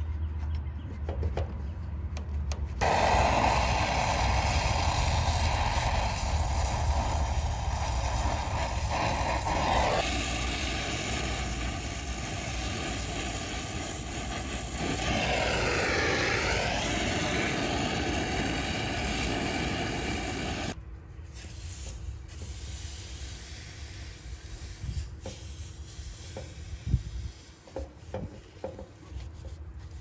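Brazing torch running with a steady loud hiss. It comes on suddenly about three seconds in and shuts off abruptly about twenty seconds in, as the copper joints of a bi-flow filter drier are brazed into a heat pump's refrigerant line. Faint handling noises follow.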